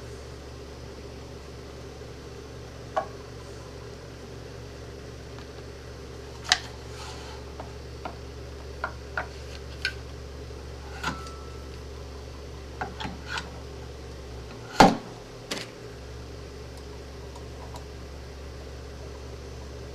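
Scattered metal clicks and clacks of a 1911 pistol being taken apart by hand on a stand, the loudest knock about 15 seconds in. A steady low hum runs underneath.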